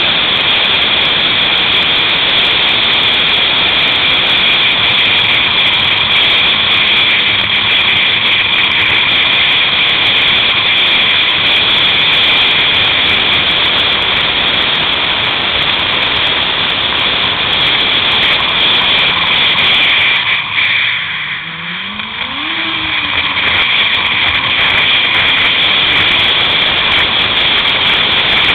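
Yamaha Apex snowmobile running at high speed along a snow trail, a loud steady rush of engine and wind. About twenty seconds in it eases off briefly, then the engine note climbs as it speeds back up.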